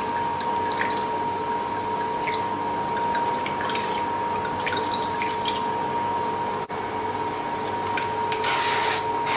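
Liquid poured from a glass bottle trickling and splashing onto salmon steaks in a stainless steel pan, with scattered drips. Near the end, louder short hissing bursts.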